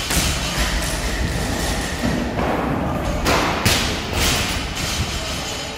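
Loaded barbells with rubber bumper plates thudding onto the gym floor as several athletes deadlift side by side, a run of irregular thuds every second or so.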